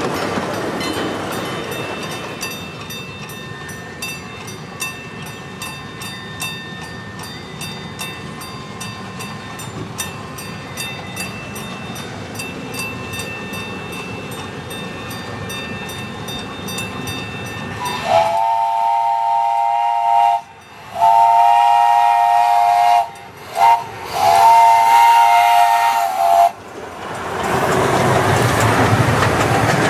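A 16-inch-gauge grand scale steam locomotive working toward the listener with a train, its exhaust beating in an even rhythm. Then it sounds its three-note chime whistle in four blasts, long, long, short, long: the grade-crossing signal. The running sounds grow much louder near the end as it passes close.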